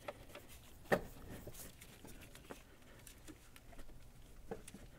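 Faint, scattered light clicks and taps of gloved hands working the nut off the alternator's main charging-wire terminal, with one sharper click about a second in.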